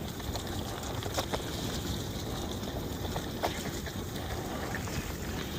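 Riding a bicycle on a park trail: wind buffeting the microphone over the steady rush of the tyres, with a few sharp clicks and rattles from the bike, the loudest about a second in and past the middle.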